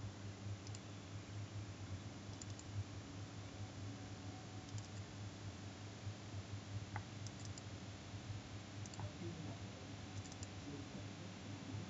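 Computer mouse clicking, in quick pairs and threes every second or two, over a faint steady low hum.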